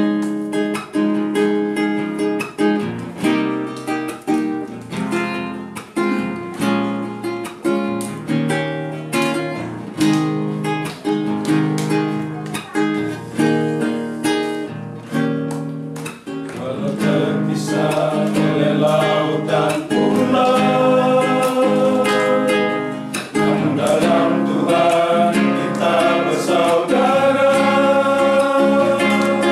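Acoustic guitar strummed in a steady rhythm, alone at first. About halfway through, a group of men's voices comes in and sings along with it.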